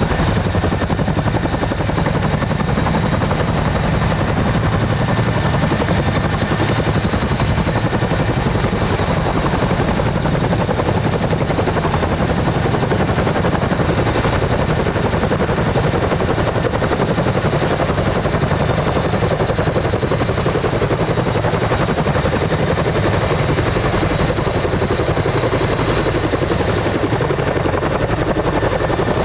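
Boeing CH-47 Chinook tandem-rotor helicopters flying low with vehicles slung underneath: a loud, steady, rapid rotor chop with a thin high turbine whine over it.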